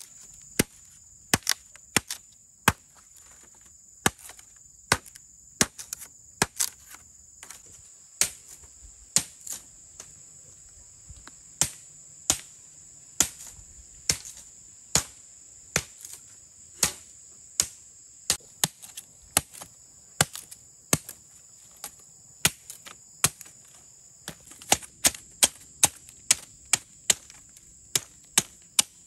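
Repeated sharp chopping blows of a hand tool on bamboo, irregular at about one to two a second and coming faster near the end, over a steady high buzz of insects.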